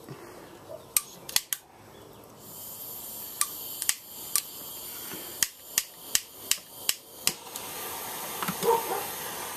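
A propane hand torch on a disposable bottle hisses as gas flows from its open valve, while a handheld lighter is clicked again and again, about a dozen sharp clicks, until the torch lights. Near the end the flame is burning with a steady rushing noise.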